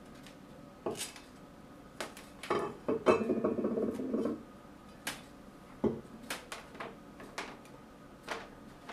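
Metal band saw wheels handled and set down on a wooden workbench: scattered clanks and taps, with a rattling clatter about three seconds in as a wheel settles on the bench.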